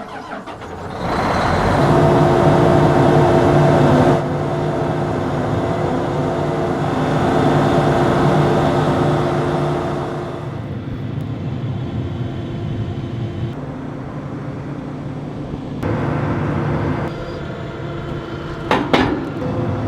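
John Deere S790 combine running steadily with a heavy engine drone, its level and tone changing abruptly several times as one take cuts to another. A single sharp knock stands out near the end.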